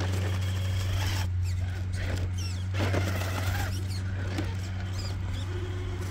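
Traxxas TRX-4 K10 scale RC crawler working slowly over concrete rubble: a steady low drivetrain hum, with a few short high squeaks about two seconds in.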